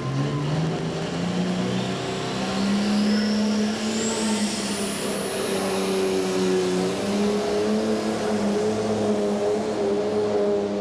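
Turbocharged diesel engine of a pro stock pulling tractor running hard, climbing in pitch over the first few seconds and then holding at high revs. A turbo whistle glides upward over the same stretch.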